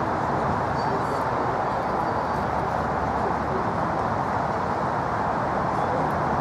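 Steady outdoor background noise, an even hiss with no distinct event.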